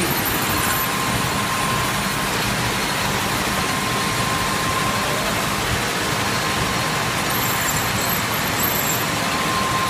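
Manual lathe running, its tool cutting a titanium bar: a steady machining noise, with a faint thin whine that comes and goes.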